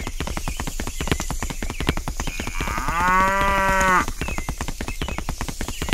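A cow mooing once: one long call that rises at first, then holds and cuts off sharply, about three seconds in. Under it runs a fast, even clicking.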